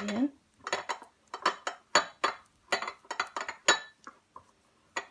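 A spoon clinking and scraping against a small dish while stirring a thick mix of honey and ground seeds, in an irregular run of short clinks about two to three a second that thins out near the end.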